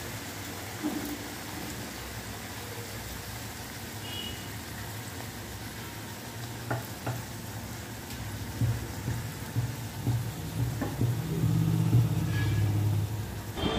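Puri deep-frying in a kadhai of hot oil: steady sizzling of the bubbling oil, with a few light clicks. A low rumble grows louder over the last few seconds.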